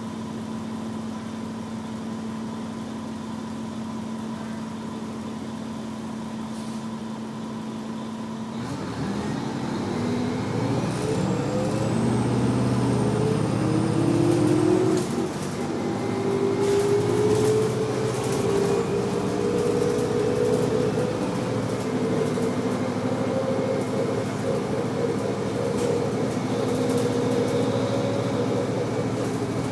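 Detroit Diesel Series 50 engine of a 1996 New Flyer D40LF city bus, heard from inside the cabin. It idles steadily, then about nine seconds in the bus pulls away and the engine note rises. Near fifteen seconds the Allison B400R automatic transmission shifts up, and the note climbs again slowly in the next gear.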